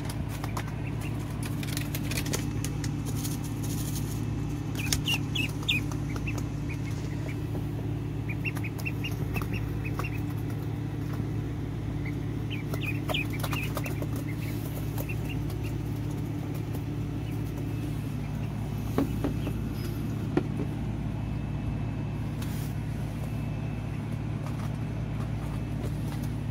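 Cayuga ducklings peeping in short, high bursts of peeps that come in a few clusters, over a steady low hum.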